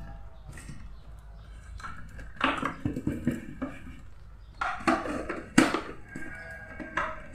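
Plastic casing of an Arctic Air Ultra mini air cooler being handled and its parts fitted together: a string of irregular clicks and knocks, the sharpest about two and a half, five and five and a half seconds in.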